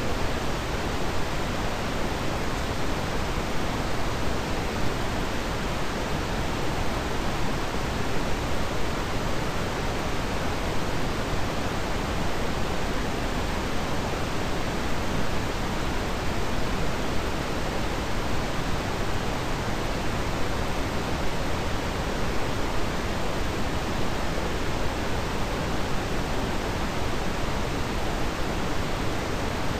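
Steady, even hiss like static, unchanging throughout, with no clicks or other events in it.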